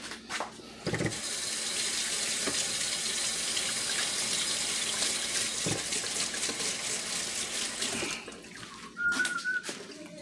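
Kitchen faucet running steadily into a sink for about seven seconds, then turned off. A short high squeak follows about a second later.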